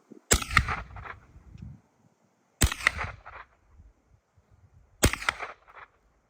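Three gunshots about two and a half seconds apart, each with a short echoing tail.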